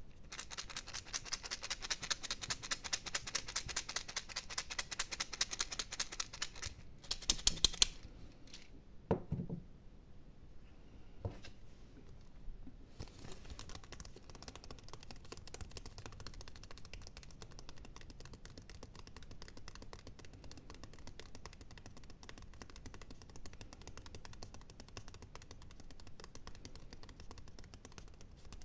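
ASMR scratching: rapid fingernail strokes close to the microphone, loud at first with a few sharper strokes about seven seconds in, then a couple of soft thumps, then softer steady scratching for the rest.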